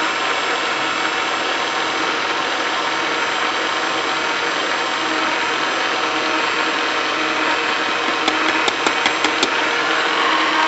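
Ron Popeil electric pasta maker running steadily, its motor turning the mixing paddle through the flour at the mixing stage, while the egg, oil and water are being added. A quick run of sharp clicks comes near the end.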